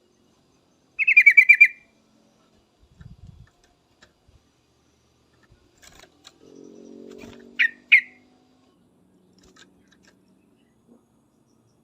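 Trucuk (yellow-vented bulbul) calling: a quick bubbly run of about seven notes about a second in, then two short downward-slurred notes near the eight-second mark. A faint low hum sounds just before those two notes.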